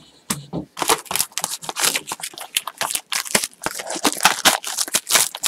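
Plastic shrink wrap being torn and crinkled off a sealed box of trading cards, starting a moment in as a dense run of quick, irregular crackles.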